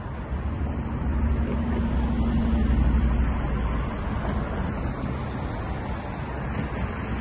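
City street traffic with a low rumble. A passing vehicle swells in loudness about a second in, peaks around three seconds, and eases off.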